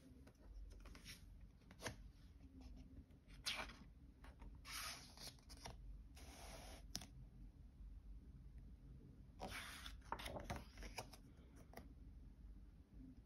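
Pages of a paperback book being turned by hand: faint paper rustles and flicks in several short bursts, with a longer rustle about ten seconds in.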